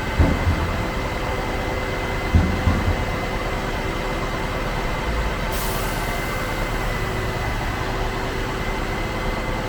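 Concrete pump truck running steadily, with heavy low thumps about a quarter second and two and a half seconds in, and a short hiss about five and a half seconds in.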